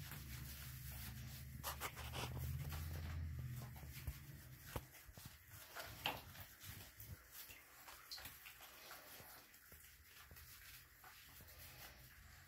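Faint rubbing and scattered soft taps of hands working shampoo into a wet puppy's fur, over a low hum that fades about four seconds in.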